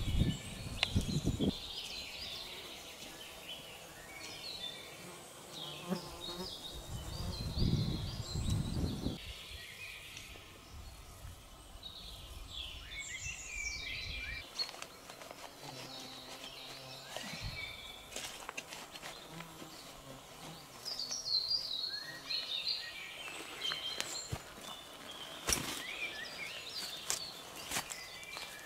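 Small birds chirping and singing in many short calls, with two brief low rumbles, one near the start and one about eight seconds in, and a sharp click near the end.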